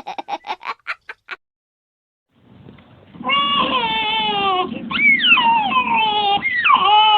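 A rapid burst of laughter fades out, then after a second of silence a young child's loud wailing cry begins, its pitch wavering and sliding down in long sobs.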